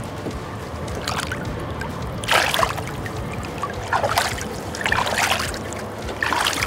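Lake water splashing in about five short bursts as a musky is let go from the landing net beside the boat, over a steady low rumble.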